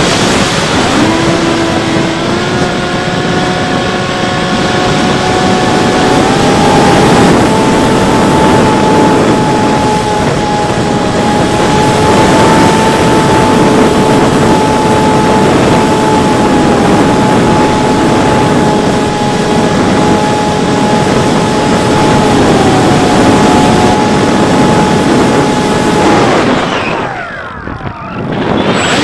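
The electric motor and pusher propeller of a Bixler 3 RC plane whine steadily in flight over a rush of wind noise, as picked up by a camera on the plane. The pitch steps up and down a little with the throttle, and the motor drops away near the end.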